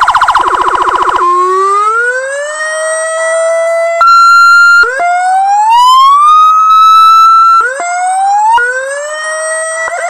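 Electronic car emergency siren through its loudspeaker, switched between tones from its remote: a fast warble, then a string of rising wails that climb and hold, with a brief steady horn-like blast about four seconds in.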